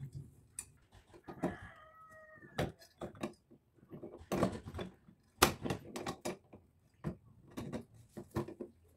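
Irregular clicks, clinks and knocks from the metal frame and fittings of a chandelier being handled while it is taken apart and its wiring worked on. A bird call sounds once in the background, about a second and a half in.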